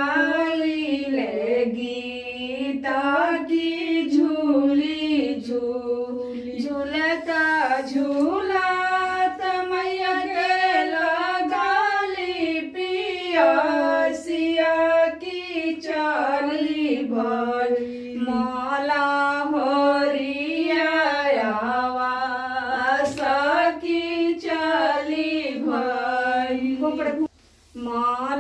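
A woman's voice singing a devotional folk song unaccompanied, in long, gliding held notes; the singing breaks off for a moment near the end.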